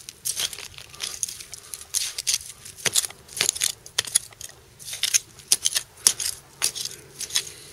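Digging a small hole in garden soil by hand: a quick, irregular run of short, sharp strokes into the earth, about two or three a second.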